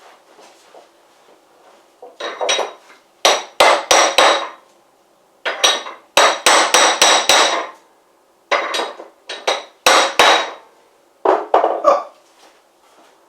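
Steel arbor and bushing slammed down hard against a bench vise, in about five bursts of several metal-on-metal strikes, each with a short ring. The strikes are driving a glued bushing that grabbed partway up the taper onto its last 1/8 inch.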